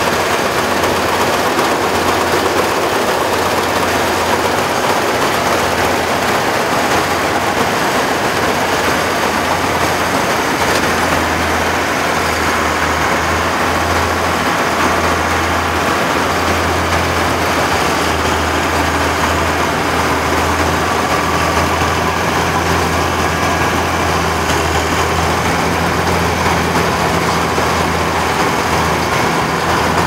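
Crop Star NSG 930 combine harvester running while harvesting paddy, its engine and threshing machinery making a loud, steady low drone.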